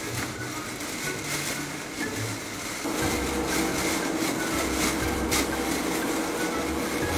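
Fingers brushing and flicking through the tips of a tray of tall grass: a steady crackling rustle, with a faint low steady tone underneath from about three seconds in.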